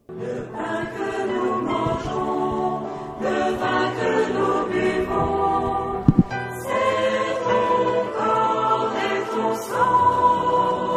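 Choir singing sacred music in held chords that change every second or so. A brief thump sounds about six seconds in.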